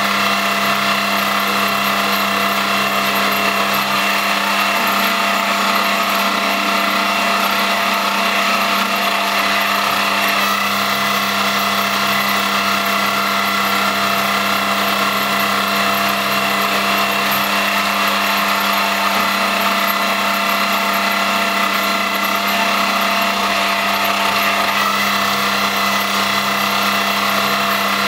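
X3 milling machine running as a home-made CNC lathe: a steady mechanical whine of motor and gearing, made of several steady tones over a constant hum. The lower part of the sound shifts a few times.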